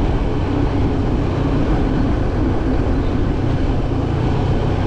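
Motorcycle engine running steadily under the rush of wind and road noise, the bike slowing on a downhill descent.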